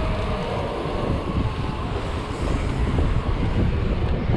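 Wind noise on the microphone of a camera mounted on a moving mountain bike's handlebars, with the bike's rolling noise on pavement; a steady, rough low rumble.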